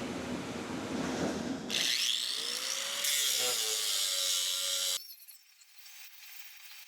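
Angle grinder with a 36-grit fibre sanding disc grinding a steel weld. The noise turns brighter and higher about two seconds in, then stops abruptly about five seconds in.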